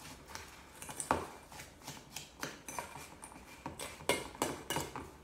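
A metal utensil scraping and clinking against a stainless steel mixing bowl while stirring chopped apple into a thick pecan paste. The clicks and scrapes come at an irregular pace, and the bowl gives a brief ring about four seconds in.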